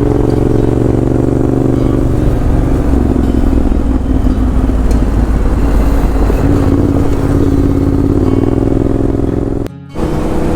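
Yamaha Ténéré 700's parallel-twin engine running steadily under way, with wind and road noise. The engine note dips a little in pitch a few seconds in, and the sound cuts out for a moment near the end.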